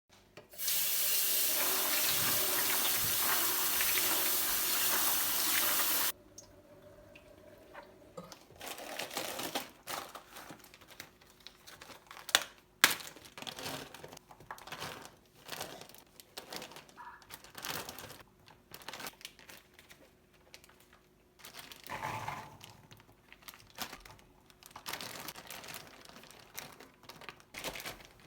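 Kitchen tap running for about five seconds, then shut off abruptly; scattered clicks, knocks and short rustles of things being handled follow.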